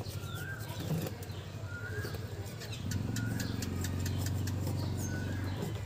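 A bamboo stick taps and pokes as it packs soil into a coir-lined wire frame, with a short repeated bird chirp every second or so. About three seconds in, a steady low engine hum starts and becomes the loudest sound.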